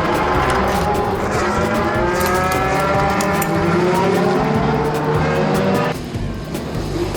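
Toy ambulance's electronic siren sounding in a wavering, slowly gliding tone, which stops about six seconds in, leaving the low rumble of the toy's small wheels rolling down a slope.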